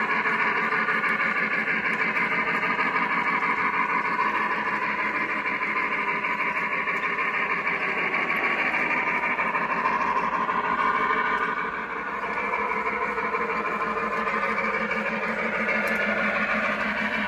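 O gauge model train, led by a Pennsylvania S1 streamlined steam locomotive, running past on its track: a steady rolling rumble and clatter of wheels and running gear.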